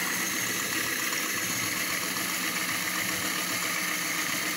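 Lego Technic electric motor running steadily at constant speed, its gears turning a Lego whisk spun fast in a glass of water.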